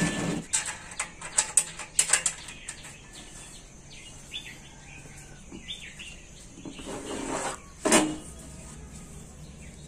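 Several sharp knocks and taps in the first couple of seconds and another about eight seconds in, from hands handling a steel-framed work table and square steel tubing. Small birds chirp in the background in between.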